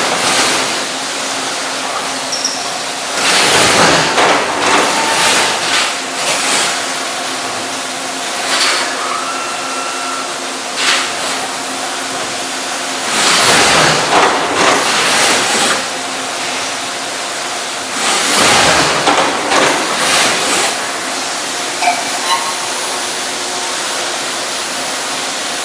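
Brother TC-32BNFT CNC tapping center machining steel under flood coolant: a steady hiss of coolant spray over a constant machine hum, swelling louder three times as it cuts. The operations are chamfering, tapping M6 holes and deep hole drilling.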